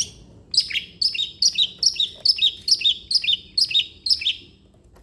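Long-tailed shrike (cendet) singing a run of short, sharp, repeated chirps, about two a second, that stops about four seconds in.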